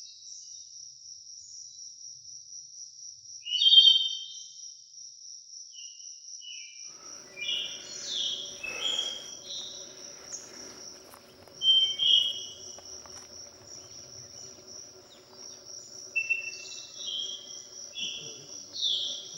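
A steady, high, pulsing insect trill, cricket-like, continues throughout while forest birds call in short bright phrases of quick falling notes, loudest about four and twelve seconds in and clustering near the end. A faint low steady hum comes in about a third of the way through.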